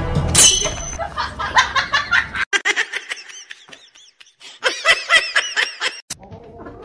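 A person laughing: a quick run of short laughs that dies down about four seconds in and comes back stronger before cutting off.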